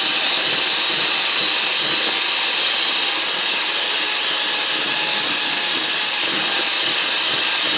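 Electric hand mixer running steadily, its beaters whipping heavy cream in a stainless steel bowl while the cream begins to thicken toward soft peaks.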